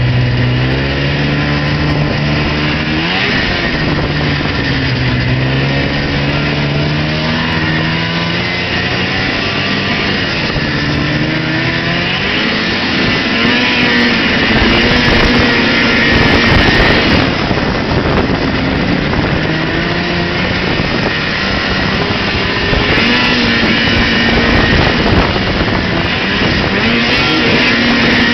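Arctic Cat Pantera snowmobile engine running under way. Its pitch climbs over the first few seconds, then rises and falls with the throttle, over a steady rushing noise.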